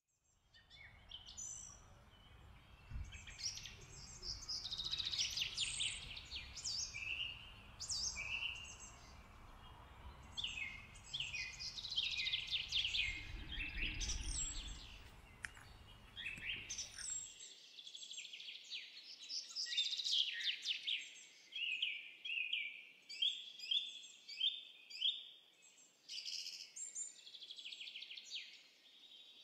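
Many small birds chirping and twittering in quick, overlapping calls. A low rumble runs underneath and stops abruptly a little past halfway, leaving the birdsong alone.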